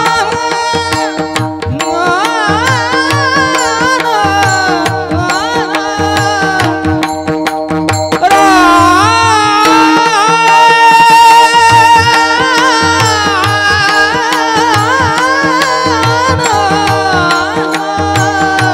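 Devotional singing: one high, powerful voice holding long, ornamented notes over a steady instrumental drone and a hand-drum rhythm. About eight seconds in, the voice climbs higher and grows louder.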